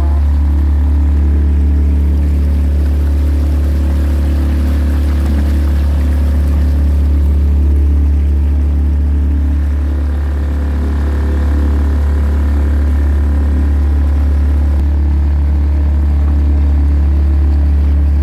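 Small open motorboat's engine running steadily at cruising speed, heard from on board as a loud, even low drone.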